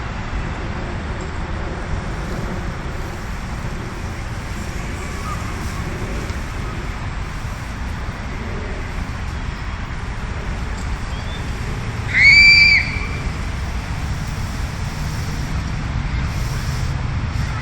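Steady low rumble of distant road traffic, with one short, loud, high-pitched squeal about twelve seconds in.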